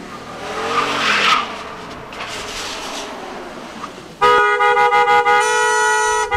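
A car's engine revving up, then a car horn sounding in one long steady honk that starts suddenly about four seconds in.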